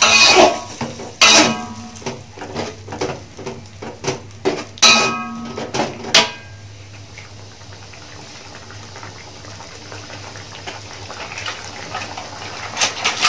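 Metal ladle-spoon scraping and clinking against a metal wok while stirring a thick sauce. There are several sharp knocks in the first six seconds, then a quieter stretch, and more scraping starts near the end.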